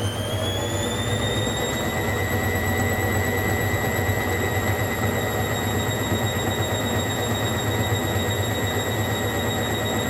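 Hoover Logic A3670 washing machine spinning its drum at about 500 rpm. The motor's high whine finishes rising in pitch in the first couple of seconds, then holds steady over a low rumble from the drum.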